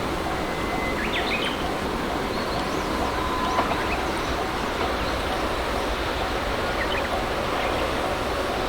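Japanese level-crossing warning alarm ringing with an evenly repeating ding over a steady outdoor rumble, with a few bird chirps about one and three seconds in.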